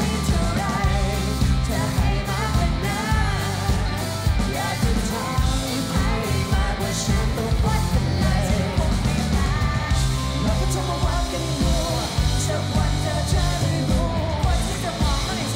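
Live rock band playing a song: sung vocals over electric guitar, bass guitar and a drum kit.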